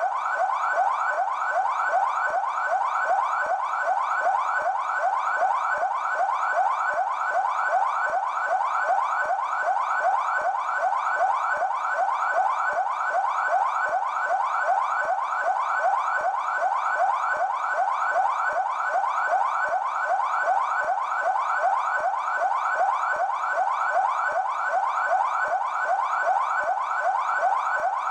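São Paulo Military Police (PMESP) siren in yelp mode: a steady, fast wail whose pitch sweeps up over and over, several times a second, without a break.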